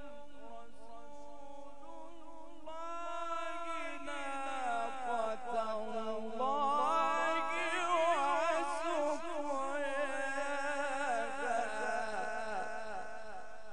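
A male qari reciting the Quran in the drawn-out, ornamented mujawwad style: one long melismatic phrase with a wavering voice. It starts on a held note, climbs and gets louder from about three seconds in, and is loudest near the middle.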